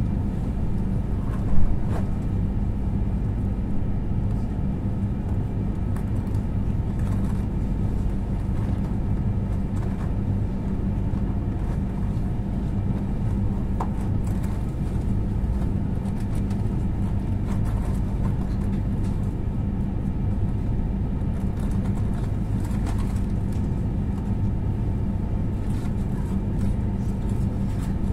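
A train's steady low drone, one even hum that does not change, with a short sharp knock about a second and a half in.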